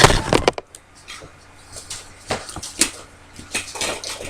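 Handling noise from a camera being picked up and carried: scattered knocks and clicks, louder in the first half second, then faint.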